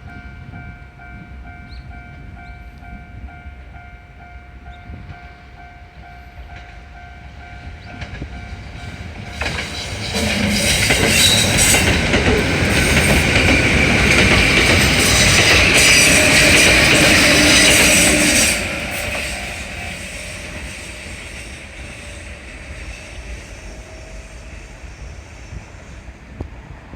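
Japanese level-crossing alarm ringing its steady 'kan-kan' tone. A Kintetsu express train then passes through the crossing from about nine seconds in to about eighteen seconds, a loud rush and clatter of wheels on rail. The sound drops off quickly and trails away after the train clears.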